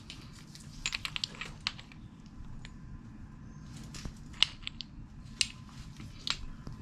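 Scattered light clicks and taps of small metal transmission gears being handled and fitted against each other, the sharpest about four and a half seconds in, over a low steady hum.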